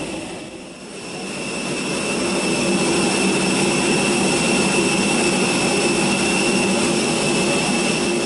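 Steady jet turbine whine from the Airbus A320's auxiliary power unit running while the aircraft sits at the stand, a constant hiss with a high steady tone. It dips briefly about a second in, then holds level.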